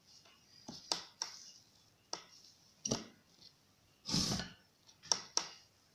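Hands rolling a log of soft yeast dough on a plastic tablecloth: scattered soft taps and knocks, with one louder brief rustle about four seconds in.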